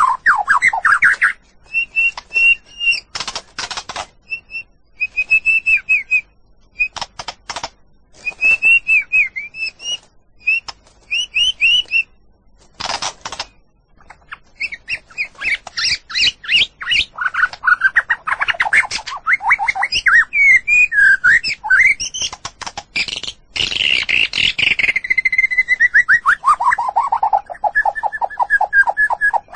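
White-rumped shama singing a long, varied song: clear whistled phrases and quick trills broken by harsh clicking notes. It ends in a long run of rapid notes that falls in pitch.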